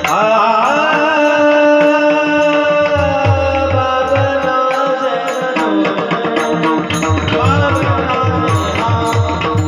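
Warkari kirtan singing: a solo voice holds long, wavering high notes, moving into a new phrase about six seconds in, over a hand-drum rhythm that drops out at first and comes back.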